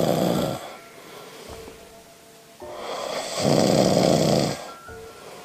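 A person snoring: a rasping snore dying away about half a second in, then a second, longer snore that swells and fades, over faint background music.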